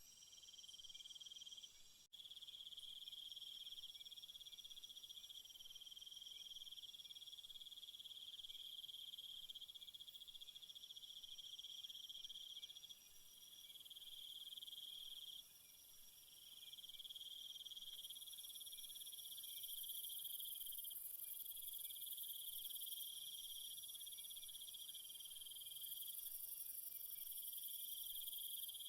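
Crickets chirring steadily in a high, thin chorus. The chorus drops out abruptly a few times and is louder in the last third.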